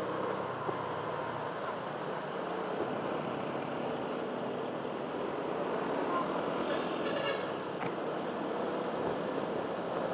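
Motor vehicle running steadily on the road: continuous engine and road noise with no pauses.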